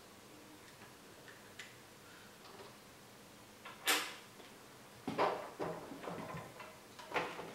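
Quiet for the first few seconds, then a sharp click and a handful of knocks and clicks of hard parts being handled as the handwheel is fitted onto a walking foot sewing machine.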